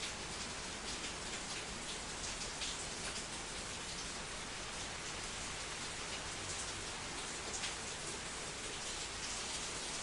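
Steady patter of falling water: a dense stream of small drop ticks over an even hiss.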